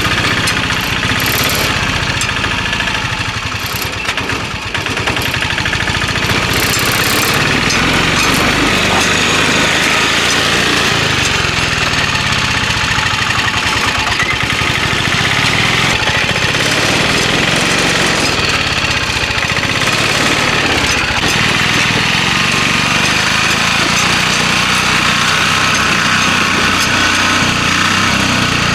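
Mahindra Alfa three-wheeler's engine running loudly and steadily as the autorickshaw drives through soft ploughed soil, briefly easing off about four seconds in.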